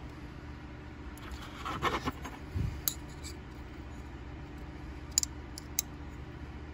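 Fingers handling the small metal parts of a folding knife during reassembly: a brief scraping rustle about two seconds in, a soft thud, then a few light, sharp clicks.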